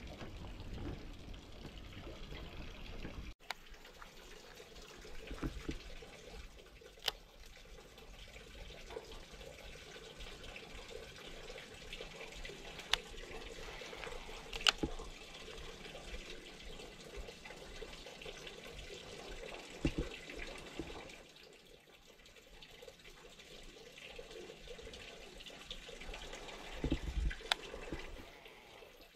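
Steady trickle and flow of water in a concrete irrigation canal, with a few short sharp clicks scattered through it.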